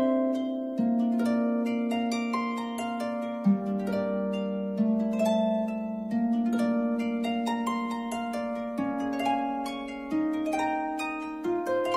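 Background instrumental music: plucked notes over a line of long-held lower notes.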